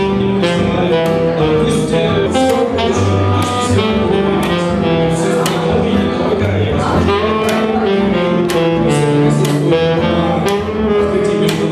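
A jazz trio playing: saxophone carrying the melody over a walking double bass and acoustic guitar accompaniment, with a steady beat.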